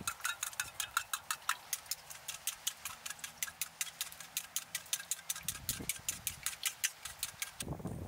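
Raw eggs being beaten in a small metal cup: a fast, even clicking of the utensil against the cup's side, about six strokes a second, which stops near the end.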